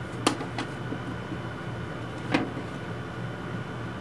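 Wooden pieces knocking on a wooden workbench as they are handled: a sharp knock shortly after the start, a lighter one just after it, and another sharp knock a little past halfway, over a steady low hum.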